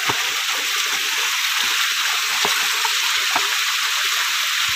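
Steady rushing hiss of water flowing through a rocky mountain creek, with scattered clicks and scrapes of footsteps on loose stones.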